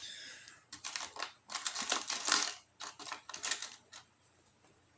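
Small metal lock-picking tools clicking and clattering as they are handled, in quick irregular bursts that die away about four seconds in.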